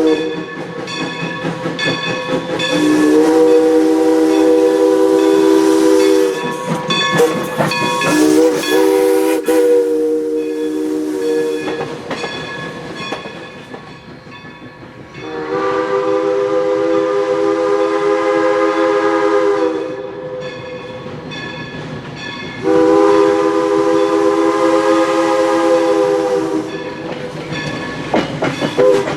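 Crosby three-chime steam whistle on a steam locomotive sounding four long blasts, with a short toot just before the second. The locomotive's running and rail clatter fill the gaps between blasts.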